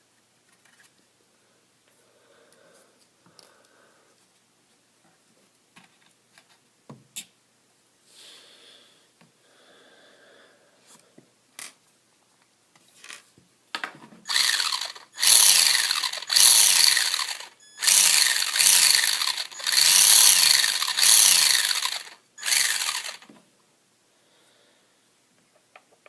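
Traxxas Slash 2WD RC truck's electric motor and drivetrain whining and grinding in a string of short throttle bursts from about halfway, the pitch sweeping up and down with each burst. The grinding is an unexplained drivetrain fault the owner is trying to trace. Faint clicks and handling sounds come before it.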